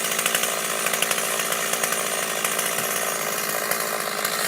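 Small gasoline engine running steadily at high revs, with a chainsaw-like drone.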